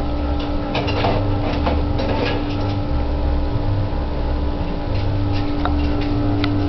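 A steady mechanical hum on one constant pitch, with an irregular low rumble that comes and goes and scattered light ticks and rustles.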